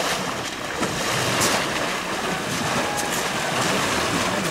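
River water sloshing and splashing around elephants and people wading in the shallows.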